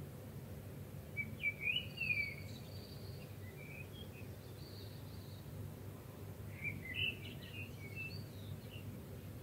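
Birds chirping and twittering in two short spells, about a second in and again near seven seconds, over a steady low hum.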